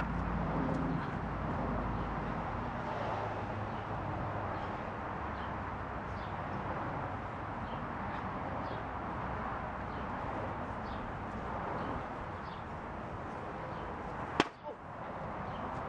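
Steady outdoor background noise with faint bird chirps. About fourteen seconds in, a single sharp smack as a flat object is swung into a wrestler's head.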